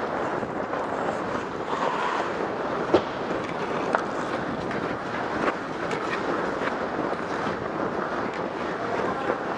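Ice hockey skates scraping and gliding over rink ice in a steady hiss, with a few sharp clicks on the ice, the loudest about three seconds in.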